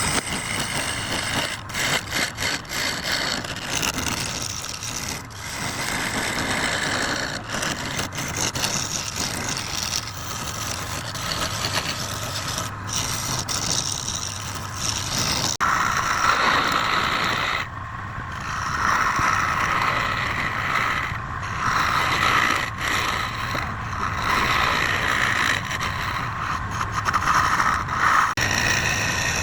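Wood lathe running with a steady low hum while a turning tool scrapes and cuts the spinning workpiece, with a few brief lifts of the tool early on. About halfway through, the cutting becomes louder and harsher.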